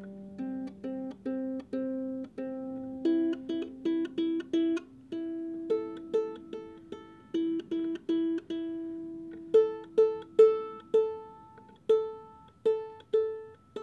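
Ukulele played note by note: a slow melody of single plucked notes, each ringing and fading, a little louder about ten seconds in.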